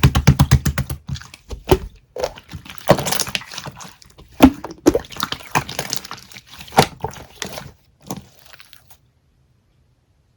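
Rapid, even tapping for about a second, then scattered sharp clicks and short crackles that stop about nine seconds in.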